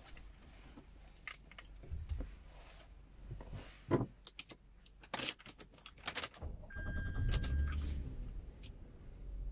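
Seatbelt and car keys clicking and jangling, then a steady electronic beep about a second long as a car engine starts with a low rumble and keeps running.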